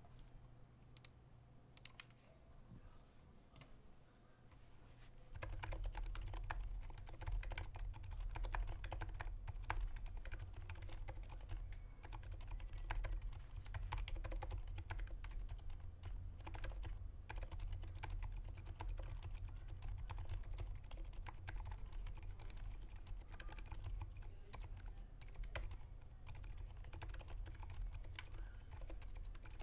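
Typing on a modded Drop Ctrl keyboard with lubed, filmed Durock Silent Dolphin linear switches, lubed and band-aid-modded stabilizers and foam in the case: quiet, muffled keystrokes. A few scattered presses, then continuous fast typing from about five seconds in.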